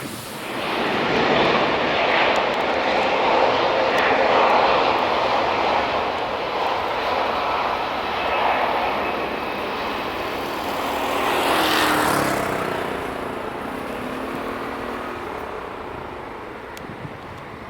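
Jet airliner engines at takeoff thrust going past. A loud roar builds about half a second in and holds, then swells again around twelve seconds. As the aircraft passes, the pitch falls and the sound fades.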